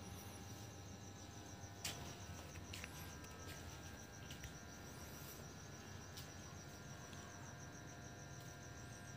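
Faint, steady trilling of a cricket, a fast even pulsing on one high note. A few soft clicks sound over it, the sharpest about two seconds in.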